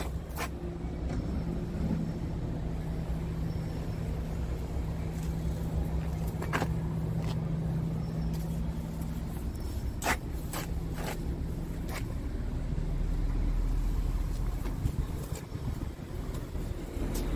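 Scania R tractor unit's diesel engine idling steadily. The rumble grows deeper and louder for a couple of seconds late on. A few short clicks sound over it.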